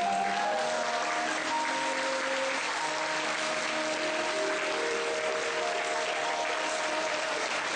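Audience applauding steadily, over music of slow held notes.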